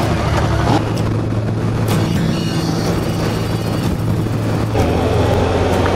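Sport motorcycle engine running at fairly steady revs as the bike rides on, with wind rushing over the handlebar-mounted camera's microphone.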